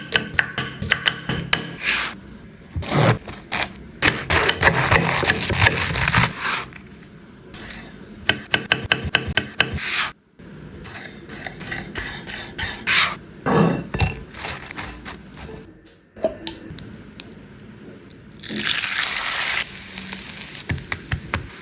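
Kitchen food-preparation sounds: runs of quick knife taps on a cutting board, spells of sizzling from beef mince frying in a pan, and wet squishing and scraping as the salad and sauce are mixed.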